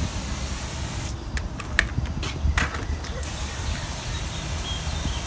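Pressure washer wand hissing as it sprays oxygen-based cleaner solution onto brick steps for a pre-soak, over the steady low running of the gas pressure washer's Honda engine. The spray drops out for about two seconds in the middle, with a few short spurts, then resumes.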